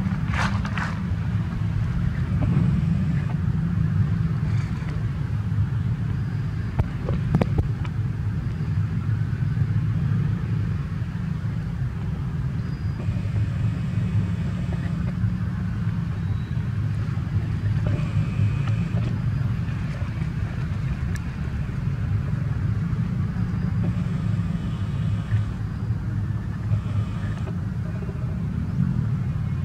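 A steady, loud low rumble, with faint brief rustles now and then.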